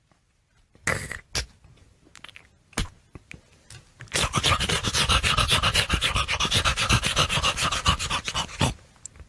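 A man imitating the sound of brushing teeth with his mouth. A few scattered breathy scrapes come first, then about four seconds of rapid, hissing scrubbing strokes, around ten a second, that stop abruptly.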